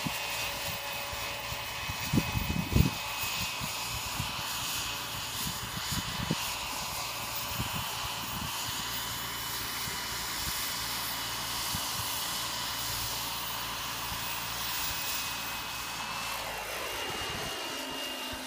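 Turbine-powered Align T-Rex 700 RC helicopter in flight: the small gas turbine's steady high whine over the rotor. A few low thumps come about two to three seconds in, and the whine shifts in pitch near the end.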